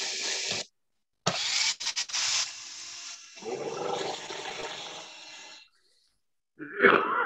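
Small rotary tool (Dremel) whirring as it spins the freshly oiled wheels of a model train truck. The sound comes in a few spurts of a few seconds each and cuts to dead silence between them, as video-call audio does.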